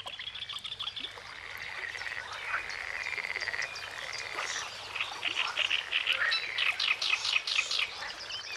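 A chorus of frogs calling at a pool, many overlapping high trills and croaks, with quick runs of repeated notes in the second half.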